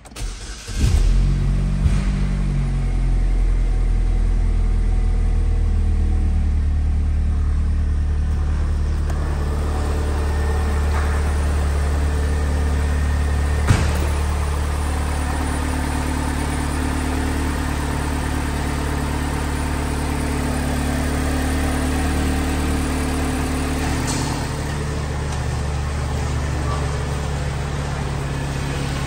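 2007 Saturn Sky's 2.4-litre Ecotec inline-four starting about a second in, flaring briefly, then settling into a steady idle. A single sharp click sounds about fourteen seconds in.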